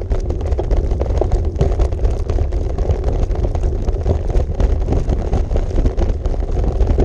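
Bicycle tyres rumbling and clattering over the boards of a wooden plank bridge: a dense run of small irregular knocks over a steady low rumble.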